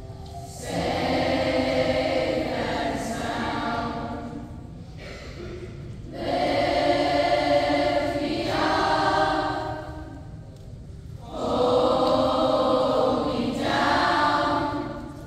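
Children's choir singing together in three long phrases of about four seconds each, with short breaks between them.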